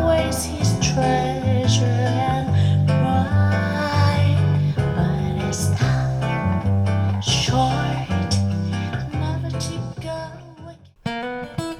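Guitar music played back through B&W 707S2 speakers driven by a LUXMAN L-590AXII amplifier from a LUXMAN DA-06 DAC. About eleven seconds in the music drops away, and a new guitar passage starts right after.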